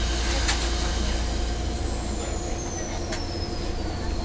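Randen tram standing at a station, heard from the driver's cab: a steady low hum with a hiss of air that starts suddenly, and a thin whistle gliding slowly down in pitch. A couple of faint clicks fall in between.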